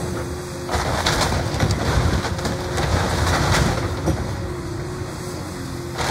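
Cat 335F excavator demolishing a wooden cabin: its diesel engine runs steadily under irregular cracks and crunches of splintering wood and falling debris. The cracking gets louder and denser from about a second in.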